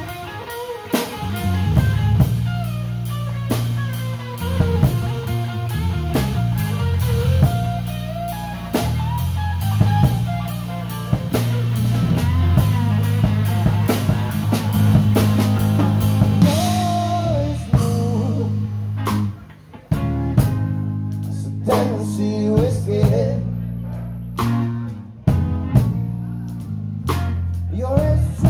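Live blues-rock band playing: a bending electric guitar lead over bass guitar and drum kit. About two-thirds of the way in the band drops out and plays short, separated stabs with gaps between them.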